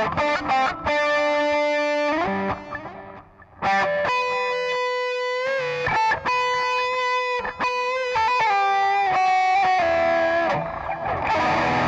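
Electric guitar played through a Digitech RP55 multi-effects processor on its crunch/overdrive patch. It plays a melodic lead line of sustained single notes with string bends, with a brief pause about three seconds in.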